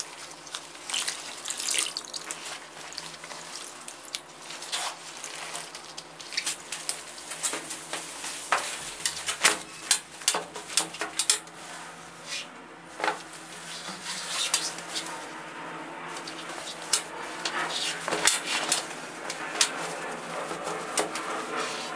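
Wet denim jacket squeezed and moved about in a plastic basin of bleach solution, with water sloshing and splashing. Later the dried jacket is handled on a table: cloth rustling with many small clicks and knocks.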